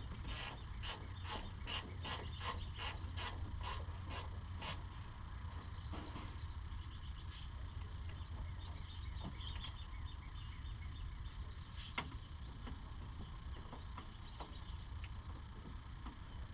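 Hand ratchet being worked on the headlight fasteners: a run of sharp clicks, about two or three a second, for the first five seconds, then fainter, quicker ratchet clicking.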